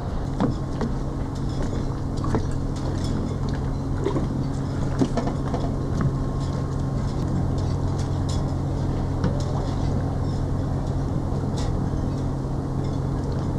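A steady low motor hum that holds one pitch throughout, like an engine idling, with light knocks and clicks scattered over it.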